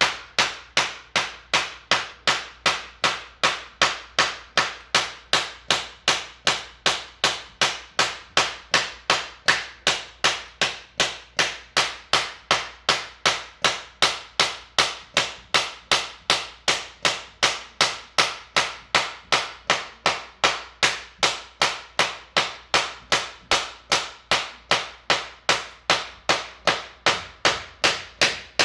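Hammer tapping steadily and evenly, a little over two sharp knocks a second, driving a vinyl floor plank along to close a gap between planks.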